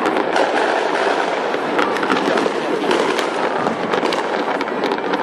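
Many fireworks going off at once, a dense, continuous crackle of overlapping bangs and pops.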